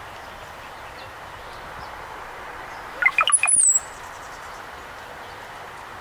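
Brown-headed cowbird song, about three seconds in: a quick run of short low notes followed by a thin, very high whistle sliding down. A steady hiss lies under it.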